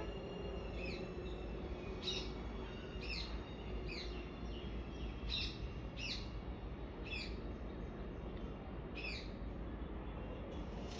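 A bird calling: a series of about eight short, high calls, each falling quickly in pitch, spaced unevenly about a second apart, over a steady low rumble.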